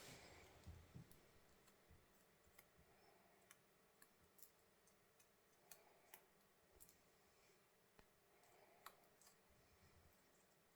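Near silence with faint, irregular small clicks, about one or two a second.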